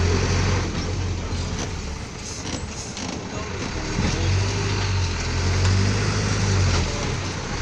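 Engine of a safari vehicle running as it drives, heard from inside the cabin: a steady low hum that fades about two seconds in and comes back strongly about four seconds in.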